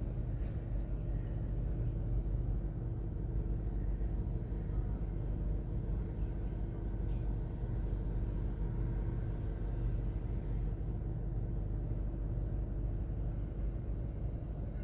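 A steady low mechanical rumble with a constant hum, like an engine or machine running.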